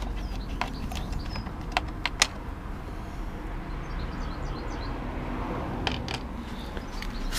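Light scattered clicks and clatters of small hand tools being handled: a Torx screwdriver worked at the fog-light surround, then fished about in a plastic tool tray. The sharpest click comes about two seconds in, and two more near the end.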